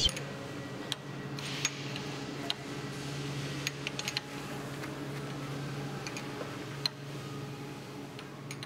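Scattered light metallic clicks of a combination wrench on a hydraulic hose fitting as it is tightened, a few in quick succession about four seconds in, over a steady low hum.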